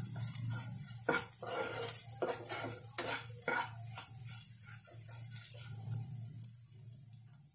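A spatula stirring a tadka of chillies and spices in a nonstick frying pan: irregular scrapes and knocks against the pan, several a second, thinning out near the end.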